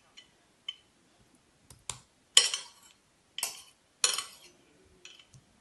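A metal spoon clinking against a dish: a handful of sharp, ringing clinks, the loudest about two and a half seconds in, with a few lighter taps around them.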